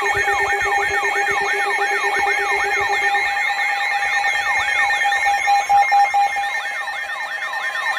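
Several emergency alert alarms sounding at once: a falling electronic sweep repeats about three times a second over steady alert tones, with a low pulsing tone that stops about three seconds in.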